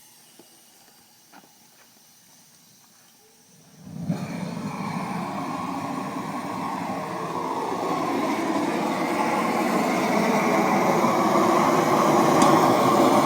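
A gas torch used as a flamethrower to light a bonfire, starting up suddenly about four seconds in with a steady roar that grows slowly louder. A few faint clicks come before it.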